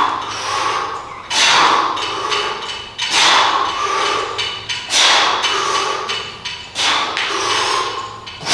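A set of pull-ups: a sharp burst of noise with each rep that fades over about a second, repeating about every 1.7 seconds.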